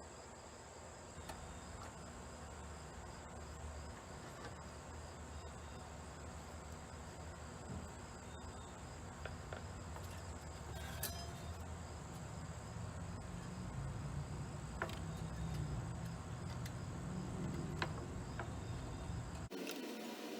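Harbor Freight (Central Machinery) 16-inch scroll saw running, its blade reciprocating with a steady buzz and a high whine. The low rumble grows stronger in the second half, and the sound cuts off abruptly about a second before the end.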